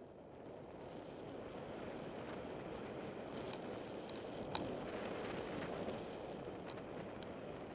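Mountain bike rolling fast down a loose gravel trail, heard from a helmet camera: a steady rush of wind on the microphone and tyres on gravel that builds over the first second or so, with a few sharp clicks and rattles from the bike.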